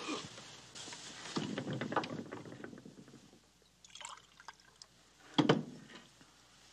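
Liquid poured from a pitcher into a cup, with small clinks of the vessels and a short louder knock near the end.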